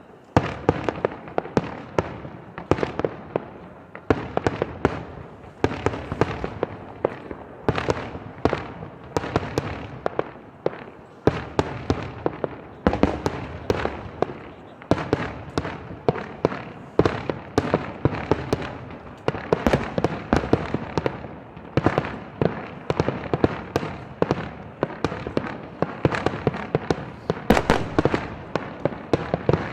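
Fireworks going off in a dense, continuous barrage: many sharp bangs and crackles a second, each with an echoing tail, the bursts overlapping with no break.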